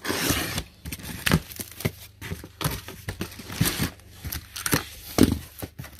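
Utility knife slitting the packing tape along a cardboard box's seam, a scrape at the very start, followed by the cardboard flaps being pulled open and handled, with irregular rustles and knocks of cardboard.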